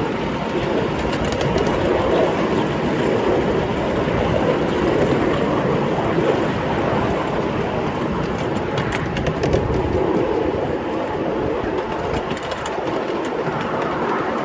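A 5-inch gauge ride-on miniature train running along its track: a steady rolling rumble of wheels on rails, with clusters of sharp clicks about a second in and again around nine seconds.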